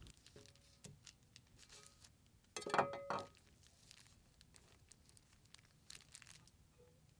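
Faint handling sounds from paper-wrapped wooden blocks and a glass sheet being set on a stone countertop: scattered light taps and paper crinkling, with a louder rustle and knock about three seconds in.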